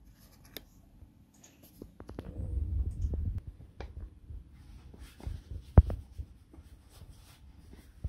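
Handling noises from a small clear plastic jar: fingers rubbing and tapping on its lid, with scattered light clicks and scrapes. A sharp knock a little before six seconds in, as the jar is tipped onto its side on carpet.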